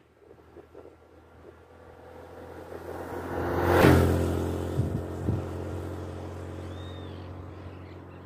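A motorcycle engine coming closer and growing louder, passing close by about four seconds in at its loudest, then fading away.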